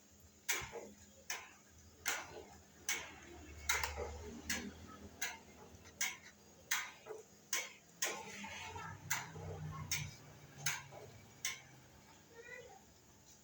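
Someone chewing rice with the mouth open, a sharp wet smack about every 0.8 s in a steady rhythm.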